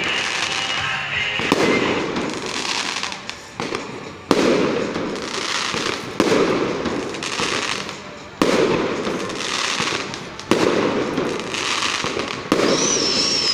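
Fireworks going off: six sharp bangs about two seconds apart, each followed by a crackling hiss that fades away before the next bang.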